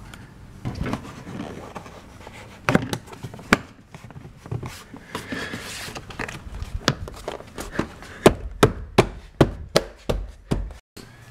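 Plastic door sill trim of a pickup being pressed and tapped down by hand, its clips snapping in with a run of sharp clicks and knocks that come quicker and louder in the last few seconds.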